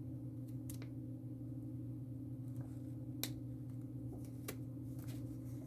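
A few short, faint clicks and taps from handling craft materials on a table, over a steady low electrical hum.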